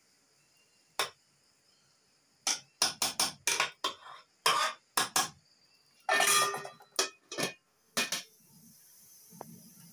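Metal spoon clinking and scraping against a metal cooking pot while fluffing freshly cooked rice: a run of sharp knocks, with a longer scrape about six seconds in. Near the end a faint steady rush of breath blown through a metal blowpipe into the wood fire.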